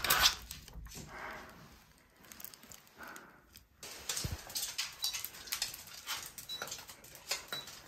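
Two small dogs greeting someone at the door in excitement: faint whines, then many quick claw clicks and scrabbling on a wooden floor from about halfway through.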